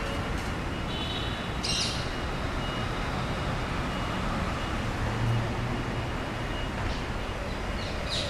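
Steady city street traffic noise, with a brief high-pitched sound just under two seconds in.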